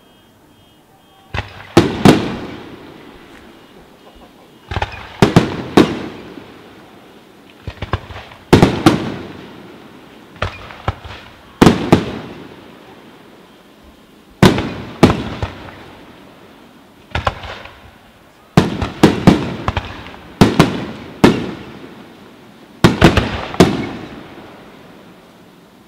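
Aerial firework shells bursting in a rapid series: about every three seconds a cluster of sharp bangs goes off, each cluster trailing off before the next. The first bangs come about a second and a half in.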